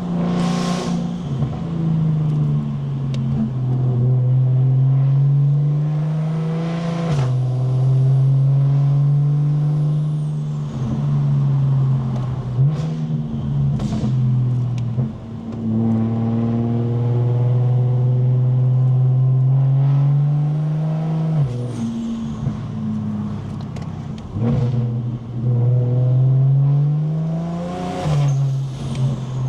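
Single-turbo BMW 335is N54 inline-six pulling through the gears of its dual-clutch gearbox. The engine note climbs in pitch, then drops sharply at each quick upshift, several times over, with a faint high whistle near the top of some pulls.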